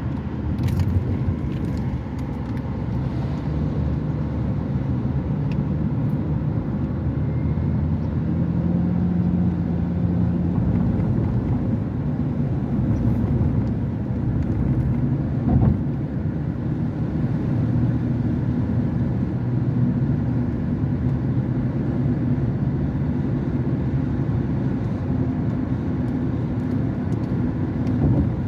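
Steady low rumble of a car driving on the road, with a short knock about halfway through.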